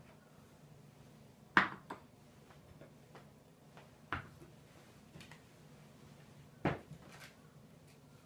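Dishes being set down on a lacquered wooden table, three sharp knocks about two and a half seconds apart, the first the loudest, over a faint low room hum.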